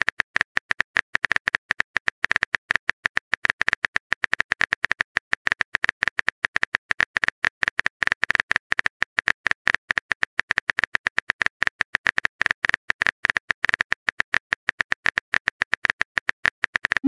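Texting Story app's simulated keyboard typing sound effect: a rapid, uneven run of short key clicks, many a second, as a message is typed out.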